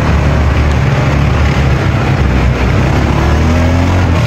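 A motor vehicle's engine running steadily, with a dense, constant noise and a strong low hum.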